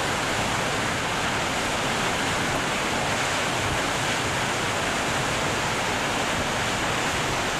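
Månafossen waterfall's steady rush of falling water, an even noise that does not change.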